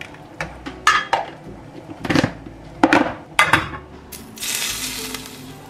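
A spoon knocking and clinking against an enamel saucepan while stirring, with several sharp strikes in the first three and a half seconds. About four seconds in, a short hiss follows.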